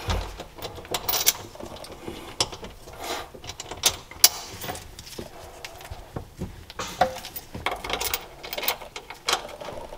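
Irregular metallic clicks and light knocks as short bolts are handled and threaded by hand into the engine mounts of a jet ski hull.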